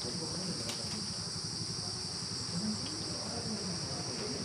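A steady, high-pitched chorus of insects, unbroken throughout.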